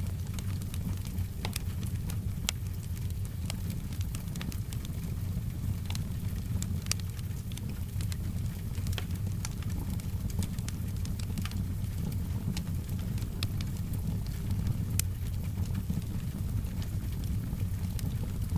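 Wood fire crackling, with frequent sharp pops scattered over a steady low rumble, and soft rain in the background.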